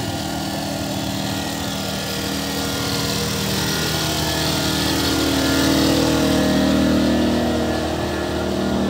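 An engine running steadily with a continuous hum, growing louder about two-thirds of the way through, over a general outdoor hiss.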